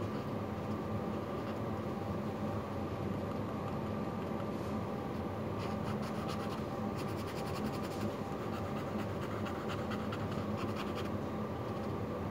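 Fine-tipped drawing pen scratching on paper in quick short strokes, busiest through the second half, over a steady background hum.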